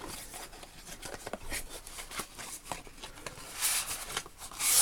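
Small clicks and taps of a dial test indicator being handled, with two brief scraping swishes near the end.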